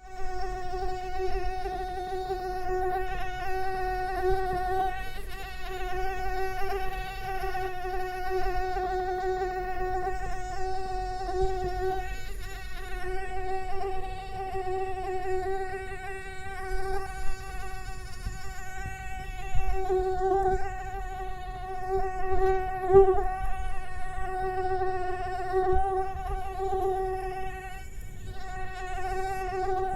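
Mosquito buzzing in flight: one continuous high whine with a stack of overtones, wavering slightly in pitch and loudness.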